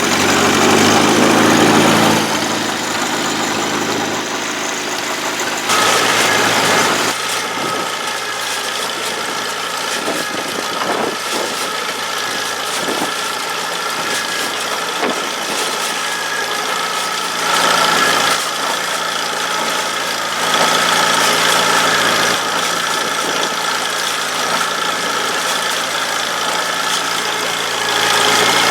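International Harvester Cub tractor engine, a four-cylinder flathead, running steadily on the baler, its sound swelling and easing several times, with a run of sharp knocks in the middle.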